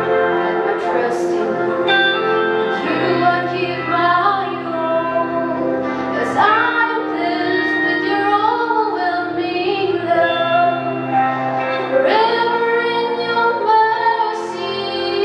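A young woman singing a slow devotional song into a microphone over held backing chords that change every few seconds.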